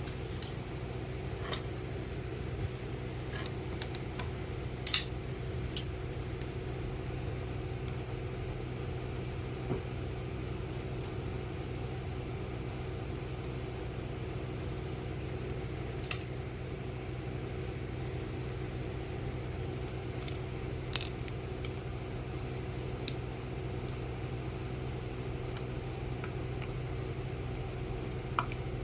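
Steady low hum with about half a dozen sharp metallic clicks and clinks from small tool parts being handled on a workbench.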